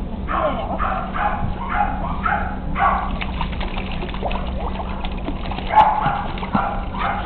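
West Highland White Terrier puppies paddling in shallow pool water: splashing and sloshing, loudest in the middle with one sharp splash a little before the end. Short high yips and whimpers from the puppies come in the first few seconds and again near the end.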